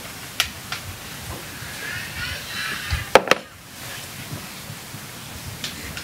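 Livestock bleating, one wavering call about two seconds in, with a few sharp clicks; the loudest are two close together just after three seconds.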